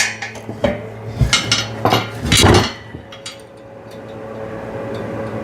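Metal clanks and knocks of a bottle jack being set into the steel mount of a hydraulic car ramp, several in the first couple of seconds, then quieter.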